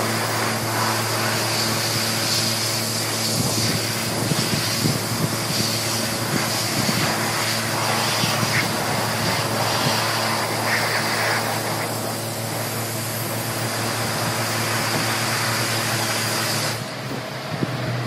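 High-pressure wash lance at a self-service car wash spraying water onto a bicycle, a dense hiss with spattering as the jet hits the frame and wheels, over a steady low hum. The spray cuts off about a second before the end.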